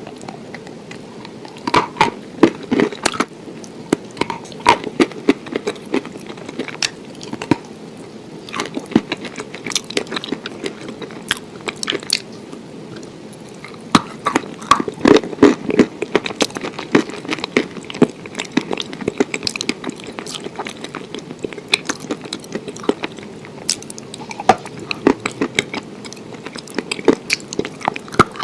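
Close-miked chewing and biting of food, with frequent irregular crunches and crackles and wet mouth sounds.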